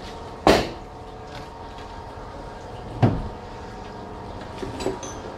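Two loud knocks about two and a half seconds apart, the second heavier and deeper, over a steady machine hum. A few light clicks come near the end.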